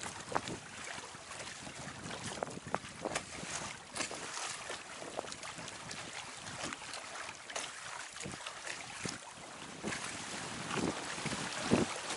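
Water rushing and splashing along the hull and outriggers of a Hobie Tandem Island sailing trimaran under way, with frequent short slaps of water and wind noise on the microphone.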